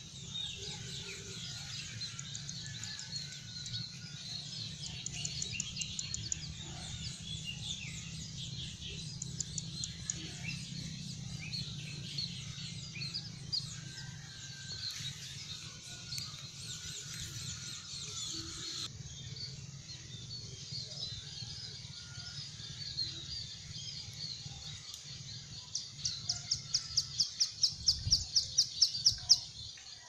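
Javan kingfisher calling near the end: a loud, rapid run of harsh repeated notes, about five a second, growing louder, the bird's cekakak laughing call. Under it, a dense chorus of small birds chirping throughout.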